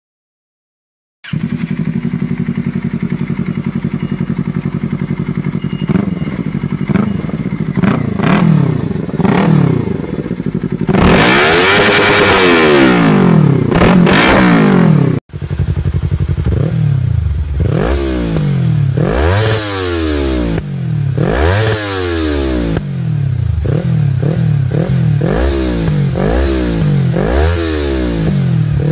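Yamaha R3's parallel-twin engine through aftermarket slip-on exhausts, idling and revved in repeated throttle blips, the pitch rising and falling each time. About 11 s in it is held at high revs for several seconds; after a sudden cut, a second R3 with an Akrapovic slip-on is blipped in quicker, sharper revs.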